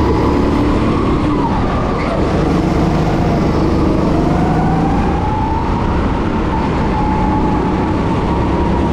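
Go-kart engine running hard, its whine dipping in pitch about a second and a half in and climbing again a few seconds later as the kart slows for a corner and accelerates out, over a steady low rumble.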